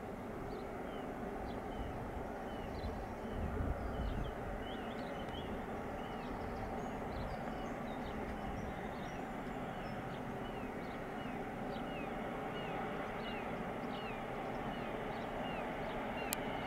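Small birds chirp over and over with short falling calls, above a steady rumble from a Class 321 electric multiple unit approaching along the main line. There is a brief low thud about four seconds in and a single sharp click near the end.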